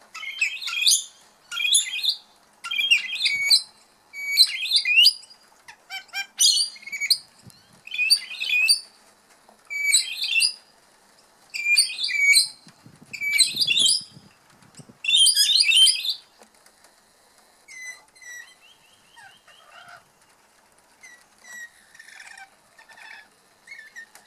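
A songbird sings short, bright, twittering phrases, one about every second and a half. After about 16 seconds it gives way to softer, scattered chirps.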